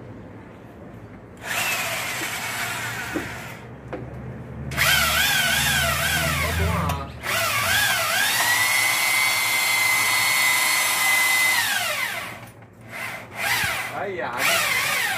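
Makita cordless drill running in long trigger pulls, its whine wavering in pitch under changing speed and load, then holding steady for a few seconds before winding down, with a few short bursts after. It drives the lift that raises an air-conditioner outdoor unit.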